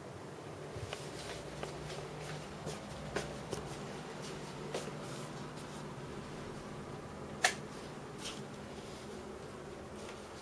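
Handling noise from a camera being carried: scattered light clicks and taps over a faint steady hum, with one sharper click about seven and a half seconds in.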